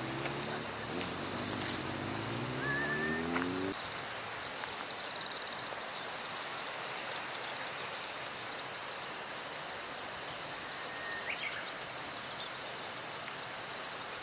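Small birds chirping: short high calls, singly or in quick groups of two or three, repeated every second or two, with a fast run of thinner falling notes in the second half. Under them runs a steady rushing noise, and a low hum rising in pitch stops about four seconds in.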